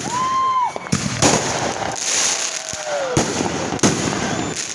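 Fireworks going off: whistling shells glide in pitch and tail off downward, with several sharp bangs and a stretch of dense crackling in the middle.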